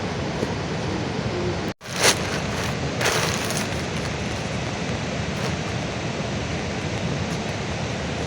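Steady rain falling. Just before two seconds in it cuts out for an instant, then comes back with a brief louder burst, and there is another louder stretch about three seconds in.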